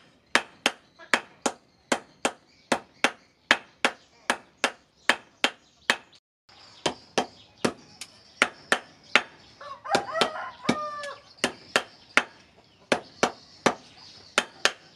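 Hand hammer forging a red-hot steel machete blade on an anvil, sharp metal-on-metal blows in a steady rhythm of about two a second, with a brief break about six seconds in. A rooster crows once about ten seconds in.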